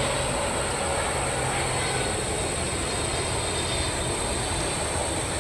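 Boeing 777-300ER's GE90 turbofan engines running at approach power as the jet flares just before touchdown: a steady, even roar.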